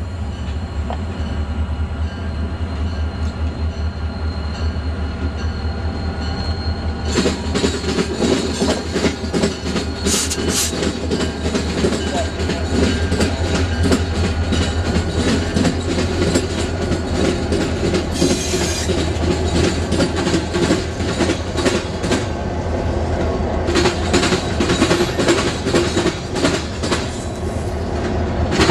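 A diesel freight train passing: a steady low locomotive engine drone, joined about a quarter of the way in by the continuous rattling clickety-clack of freight cars rolling over rail joints.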